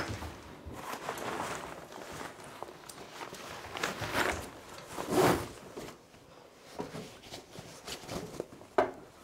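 Rustling and swishing of a backpack and jacket fabric being handled and unpacked, with a few knocks and footsteps on a wooden floor. The loudest swish comes about five seconds in.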